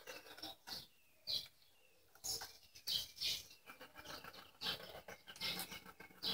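Small birds chirping in short repeated calls, mixed with light clicks and taps as hands work on a small gasoline engine that is not running.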